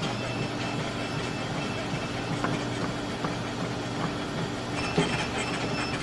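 A treadmill running: a steady motor and belt drone with a few faint knocks.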